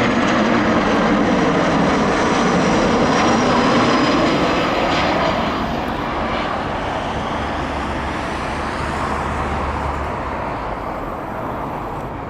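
Jet airliner passing close by: a loud rush of engine noise with a slowly falling tone, strongest for the first five seconds or so and then fading away.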